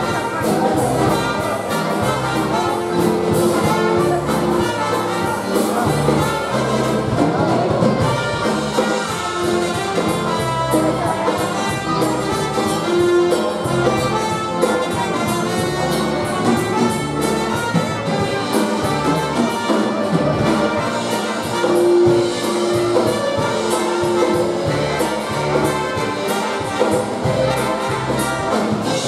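Live polka dance band playing, with trumpets carrying the tune over accordion, drums and a steady bass beat.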